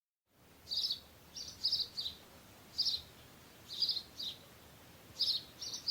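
A small bird chirping: short, high chirps, mostly in quick pairs or threes, repeating every second or so over a faint background hiss.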